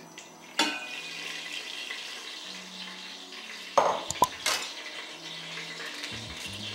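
Cooking oil poured into a hot, dry stainless-steel pot, hissing and sizzling steadily. A clink near the start and a few sharp knocks of crockery around four seconds in.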